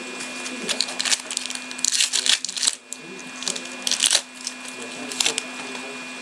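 Trading cards being handled: crisp rustling and clicking of card stock and plastic, in several short flurries, the longest about two seconds in.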